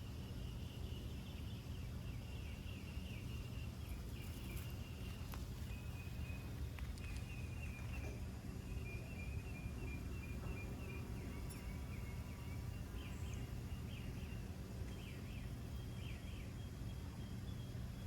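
Outdoor ambience of birds chirping in short repeated notes over a steady low rumble.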